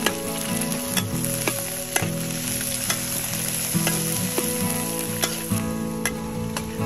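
Chopped green onion, garlic and chili sizzling in a hot metal wok as a metal spatula stirs them, with sharp clicks of the spatula against the wok about once a second.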